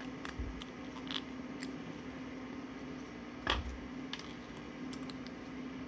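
A metal hook tool picking and prying 3D-printed plastic support material out of a print: small scattered clicks and snaps of plastic breaking away, the loudest about three and a half seconds in.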